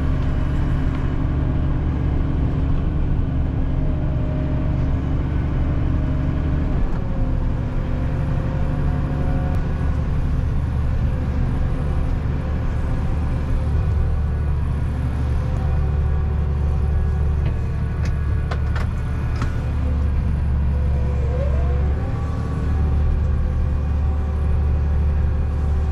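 Massey Ferguson tractor engine running steadily while pulling a wheeled harrow, heard from inside the cab; the engine note shifts slightly a couple of times.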